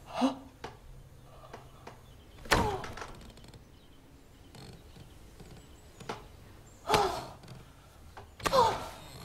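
A woman's short high cries, four in all, a few seconds apart, each dropping in pitch, the louder ones starting with a dull thump.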